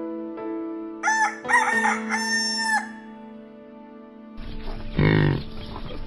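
A rooster crowing one full cock-a-doodle-doo, about two seconds long, starting about a second in. From about four and a half seconds a water buffalo calls with a deep, loud low, over a steady music bed.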